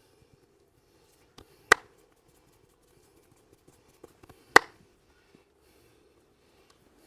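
Two sharp, loud clacks from a head and neck massage, about three seconds apart, with a few softer taps close to each. A faint steady hum runs underneath.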